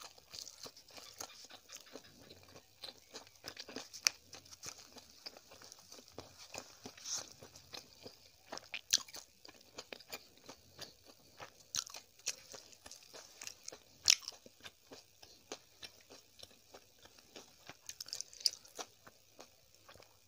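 Close-miked eating of an egg roll with an instant-noodle filling: a steady run of wet chewing clicks, bites and soft crunches.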